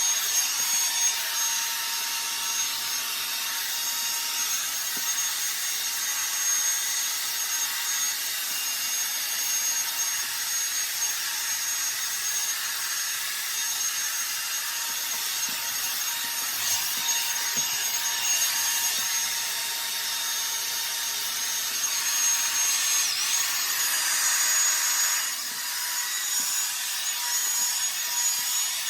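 Revlon One-Step hot air brush running steadily: the rush of hot air with a high motor whine. The whine dips briefly and the sound drops a little in level about 25 seconds in.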